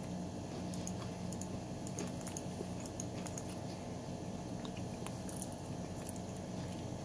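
A computer mouse clicking a dozen or so times, irregularly, over a steady low hum.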